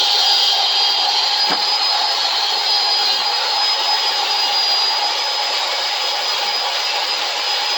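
Electric drill spinning a wire wheel at steady speed, a continuous high whine with a brushing hiss, as it strips a screwdriver's silver paint that only imitates chrome. A single light tick about a second and a half in.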